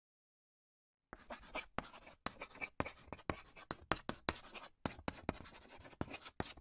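Marker pen scratching out handwriting in quick strokes, about three a second, starting about a second in.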